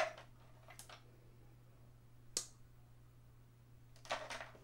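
Makeup products being picked through on a table: a sharp click at the start, another about two seconds in, and a short clatter of clicks near the end, over a faint steady hum.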